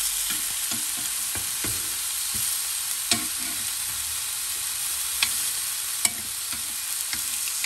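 Pork steaks sizzling on a hot nonstick grill pan: a steady frying hiss. A few sharp clicks of metal tongs on the pan come about three, five and six seconds in.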